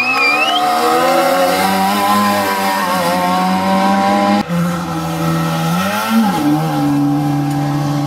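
Trabant rally car engine running hard at steady high revs, cut off abruptly about halfway. Then a second car's engine climbs in pitch, drops sharply around six seconds in, and settles into a steady drone.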